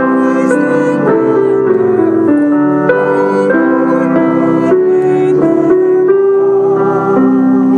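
Slow instrumental keyboard music: held chords under a stepwise melody.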